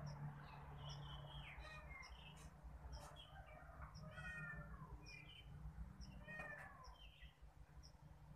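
Faint, high kitten mews, short and mostly falling in pitch, repeated several times. Behind them, a soft high chirp repeats about twice a second.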